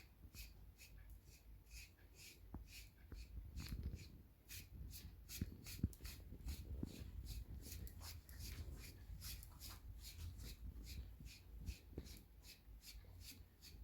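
A pet grooming brush is being stroked through a cat's fur. It makes a faint run of short, scratchy swishes, about three strokes a second.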